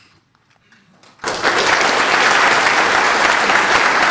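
Audience applause, breaking out suddenly about a second in and going on loud and steady.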